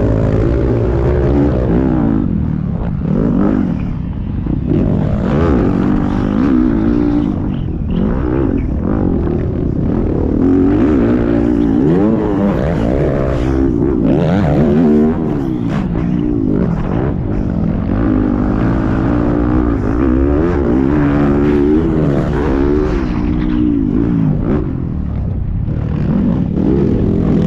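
Motocross dirt bike engine revving hard, its pitch climbing and falling again and again as the rider twists the throttle and backs off.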